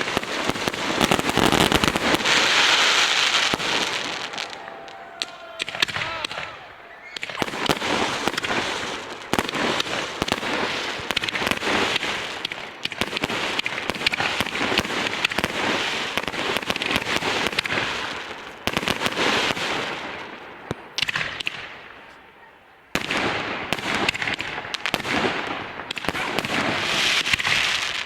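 Fireworks display: dense, continuous crackling and banging of many shells going off together. It thins out twice, a few seconds apart in the middle, then comes back suddenly near the end.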